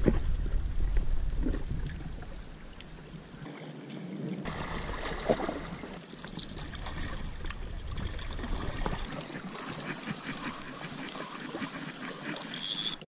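Small sea waves lapping and trickling against shore rocks, with a few sharp clicks and knocks from handling a fishing rod and line.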